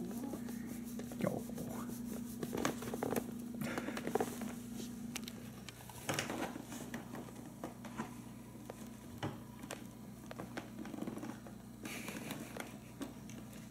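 Cats shifting about in a cardboard box filled with crumpled packing paper: scattered soft rustles, crinkles and light taps of paper and cardboard. A steady low hum runs underneath and stops about halfway through.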